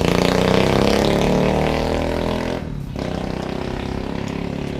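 A motor vehicle's engine accelerating, its pitch climbing for about two and a half seconds. It then breaks off briefly, as at a gear change, and carries on at a steadier pitch.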